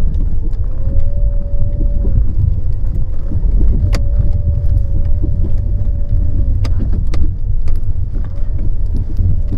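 Loud low rumble of a moving road vehicle, with an engine hum that comes and goes and a few sharp rattling clicks.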